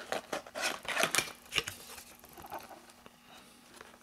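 A cardboard trading-card booster box being handled and its top flap opened: a quick run of light taps and scrapes in the first second and a half, then softer rustling.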